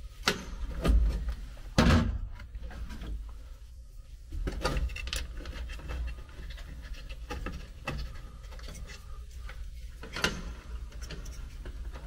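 Scattered clicks, knocks and rustling from hands working the wiring inside a sheet-metal HVAC air handler cabinet, with the loudest knocks about two seconds in.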